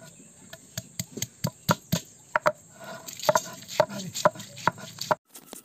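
Stone roller knocking and crushing pieces of raw green mango on a flat stone grinding slab to make chutney: a run of sharp, irregular knocks, two or three a second.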